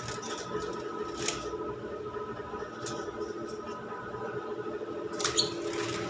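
Caged lovebirds giving a few short, sharp high chirps, the loudest near the end, over a steady hum.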